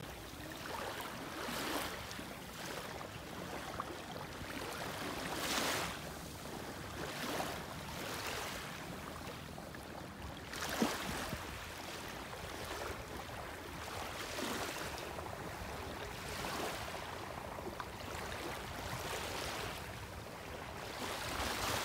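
Small sea waves lapping and washing over a sandy, fine-gravel shore in shallow water, swelling and easing every second or two.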